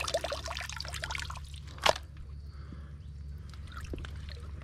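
Water trickling and dripping with wet mud squelching at a mangrove mud crab hole, crackly and dense at first, then quieter. There is one sharp click or snap a little under two seconds in.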